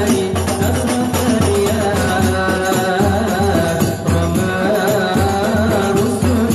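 Hadroh ensemble playing: rebana frame drums beat a steady rhythm under voices singing an Arabic sholawat.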